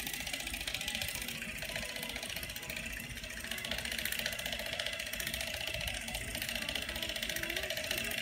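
Battery-powered facial cleansing brush running with a steady, rapid buzz while it is pressed against the face and moved over the skin.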